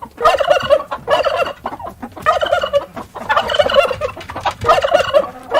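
Turkeys gobbling: several rapid, warbling calls in quick succession.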